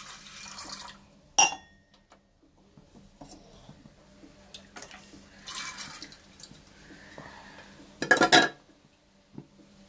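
Water pouring into a pressure cooker for about a second, then a sharp metallic clank. Soaked dal tipped from a steel bowl into the cooker with a brief pouring rush, and a louder ringing clatter of metal on metal about eight seconds in.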